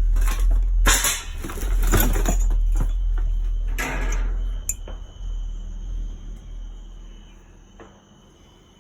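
Household junk in a dumpster clattering and clinking as it is rummaged through: metal, glass and crockery knocking together, busiest in the first four seconds. A low rumble fades away toward the end, and crickets chirp steadily from about halfway through.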